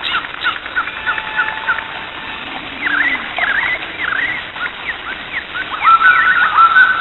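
Songbirds calling, with many short quick chirps, then from about two thirds of the way in a run of repeated whistled notes, each dropping into a held tone.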